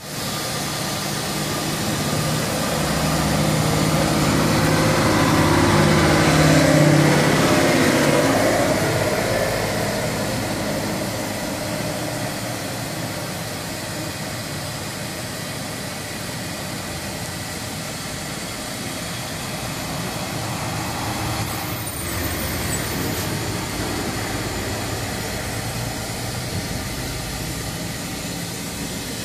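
Steady machine noise: a hiss over a low hum. It grows louder with a wavering hum in the first several seconds, then settles to an even level.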